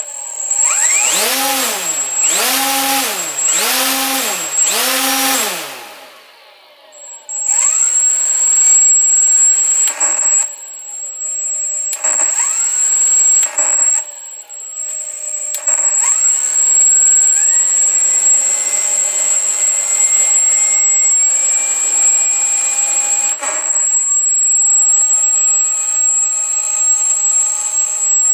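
RC plane's brushless motor, run by an Emax BLHeli 40A ESC set up for reverse thrust, spinning its propeller. It revs up and back down four times in quick succession, then runs at changing throttle with several brief drops and some stepwise rises in speed, over a steady high-pitched whine.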